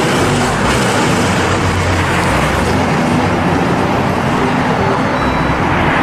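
A bus driving along: its engine running under steady tyre and road noise.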